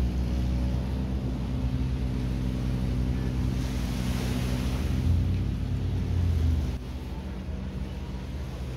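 A boat's engine running steadily, with a low hum over the wash of the sea; it drops in level about seven seconds in.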